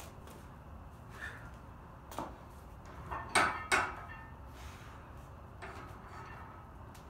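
Scattered knocks and clatters as a lifter settles onto a flat weight bench under a racked barbell and sets his grip, about six in all. The loudest two come close together about three and a half seconds in.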